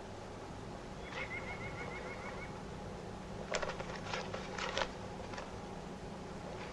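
Quiet outdoor ambience with a small bird giving a quick trill of about eight repeated notes about a second in, then a brief cluster of short clicks and rustles in the middle.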